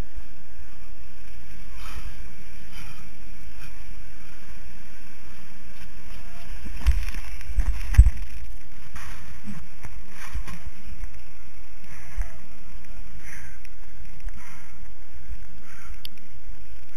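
Steady wind and handling rumble on a GoPro's microphone as it is carried through a foam pit, with a few heavy knocks about seven to eight seconds in as the camera plunges into the foam.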